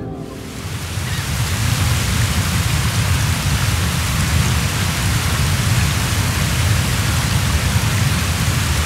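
Skógafoss waterfall: a steady rushing of falling water, heavy in the low end, swelling in over the first second.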